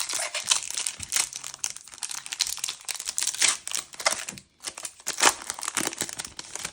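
Trading-card booster pack wrapper crinkling as it is torn open and pulled apart by hand, a dense crackle with a short pause about four and a half seconds in.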